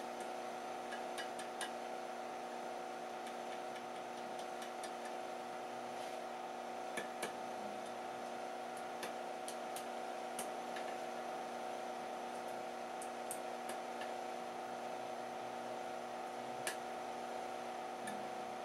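Steady machine hum made of several fixed tones, with faint, scattered light clicks and ticks over it; no hammer blows.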